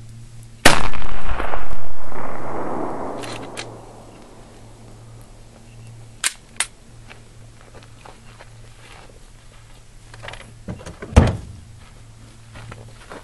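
A single .45 ACP handgun shot with a 200-grain Fiocchi hollow-point round, a loud sharp crack about a second in, followed by a rolling echo that fades away over about three seconds. A couple of small clicks and a short thump come later.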